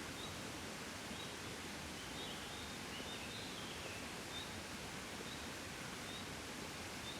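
Soft, steady wind noise, with a small bird giving short high chirps about once a second and a brief twittering phrase a few seconds in.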